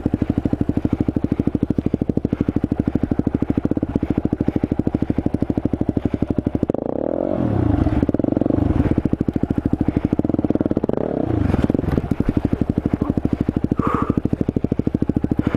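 Supermoto motorcycle engine idling with a steady rapid beat, revved briefly twice: once about seven seconds in and again around eleven seconds.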